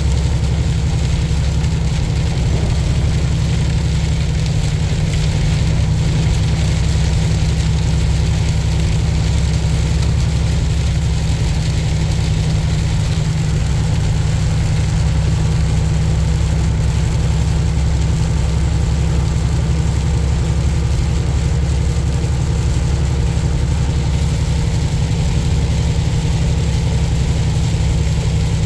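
Tractor-trailer's diesel engine running at a steady cruise, a constant low drone, with an even hiss of road and weather noise over it.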